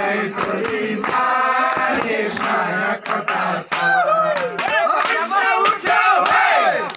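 A crowd of men singing a festive folk song together and shouting, with whoops breaking in.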